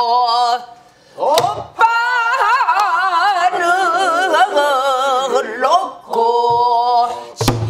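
A woman singing pansori, drawing out a long, wavering melismatic phrase with heavy vibrato. A few strokes on a buk barrel drum come in about a second and a half in and twice near the end.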